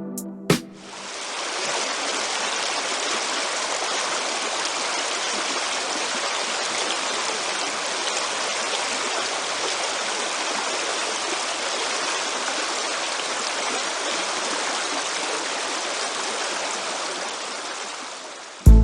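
Fast-flowing stream water rushing with a steady, even sound. It fades in about a second in and eases slightly near the end.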